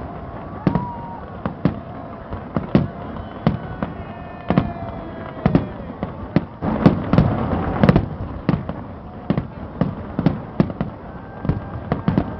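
Aerial fireworks display: shells bursting in irregular sharp bangs, several a second, with a denser volley of louder bursts about seven seconds in.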